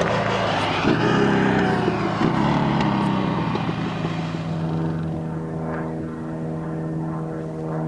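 Car engine running through open-style side exhaust pipes, pulling hard with a couple of jumps in pitch as it changes gear, then holding a steady pitch as the sound slowly fades.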